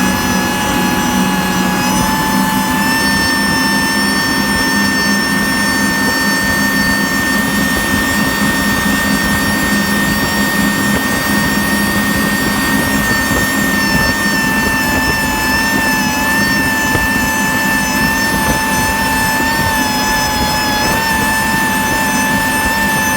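Mercury Verrado 350 outboard running steadily with a high-pitched whine over the engine sound; the owner puts the fault down to a bad fuel pump. The whine rises a little about two seconds in and wavers slightly later on.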